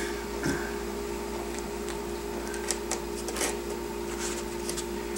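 Hands pressing and working potting mix in around a tomato seedling in a plastic pot: soft rustling of soil with scattered light scratches and clicks, over a steady low hum.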